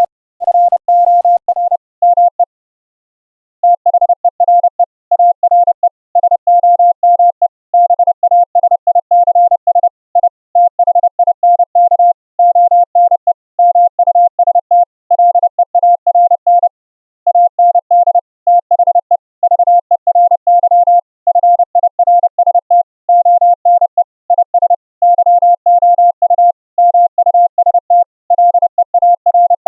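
Morse code (CW) audio tone received over an internet WebRTC link: a single steady pitch keyed on and off in dots and dashes, with a short pause about two and a half seconds in. For the first couple of seconds a faint hiss rides above the tone; after that the tone is clean.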